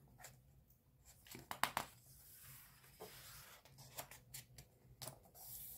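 Faint page turn of a picture book: a few soft clicks about a second and a half in, then a brief paper rustle, with scattered light taps of the pages being handled.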